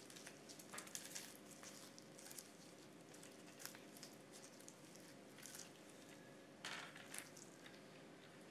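Near silence with faint scattered taps and rubbing from gloved hands handling and turning a plastic quadcopter drone, over a low room hum.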